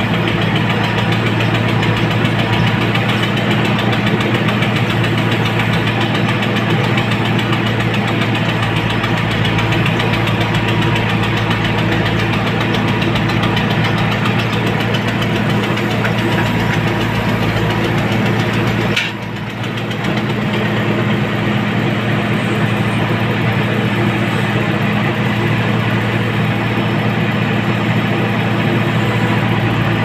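Backhoe loader's diesel engine running steadily while the backhoe arm digs, heard from inside the cab. About 19 seconds in the level briefly dips, with a short sharp click.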